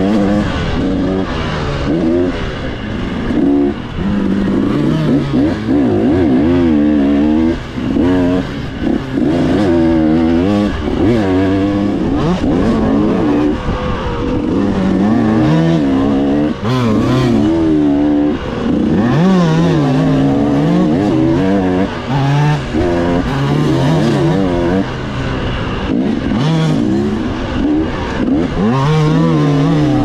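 Dirt bike engine revving hard, its pitch climbing and dropping again and again as the rider works the throttle and gears at speed, with brief dips when the throttle is rolled off.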